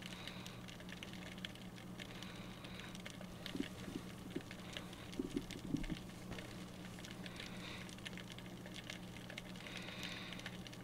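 Underwater ambience picked up by a submerged GoPro: a faint, dense crackle of small clicks over a steady low hum, with a few soft knocks from about three and a half to six seconds in.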